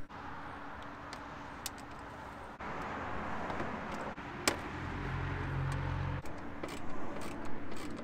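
Scattered light clicks of a flathead screwdriver prying at the plastic door panel around the interior handle of a 2003 Toyota Tacoma, over a steady rushing noise that swells about two and a half seconds in, with a low hum for about a second in the middle.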